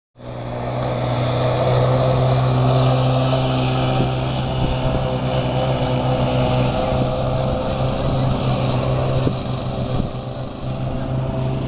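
Small four-wheeler (ATV) engine running at a steady pitch, with a hiss over it.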